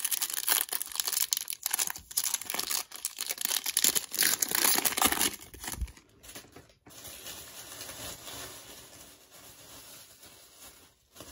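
Foil wrapper of a Topps Chrome baseball card pack crinkling and tearing as it is ripped open by hand, loud for about five seconds, then a quieter rustle.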